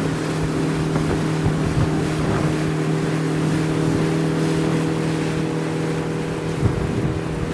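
Boat engine running steadily at a constant pitch, with wind and water noise over it.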